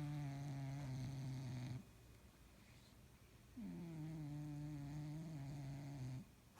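Domestic cat snoring. Long pitched snores that dip in pitch as each begins: one ends about two seconds in, and the next starts about a second and a half later and lasts about two and a half seconds.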